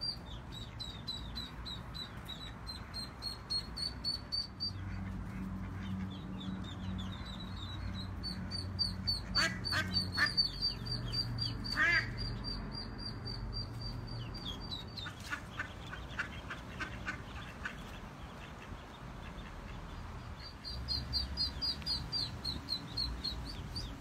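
Ducklings trapped in a storm drain peeping in rapid, continual high-pitched series, with an adult hen duck quacking loudly a few times around the middle.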